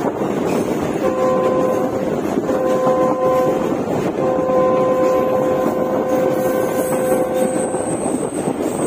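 Passenger train in motion heard from a coach window: a steady rumble and rush of the running coaches, with the locomotive's horn sounding up ahead in two short blasts and then one long blast of several seconds.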